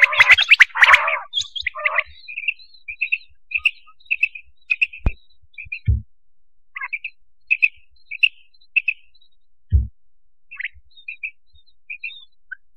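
Quail calling: a loud burst of calls in the first second, then many short, soft chirps about twice a second. Two low thumps fall about six and ten seconds in.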